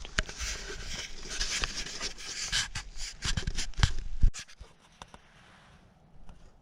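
Close rustling and scraping with a run of sharp knocks and clicks, the loudest thump about four seconds in, then it goes quiet.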